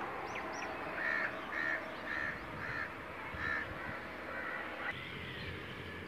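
A crow cawing: a series of about six short harsh caws, roughly two a second, with a few faint high bird chirps near the start.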